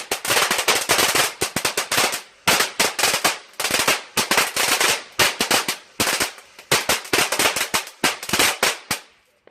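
A firework going off as a rapid string of sharp cracks, many a second, in clusters with short breaks between them. The cracks stop just before the end.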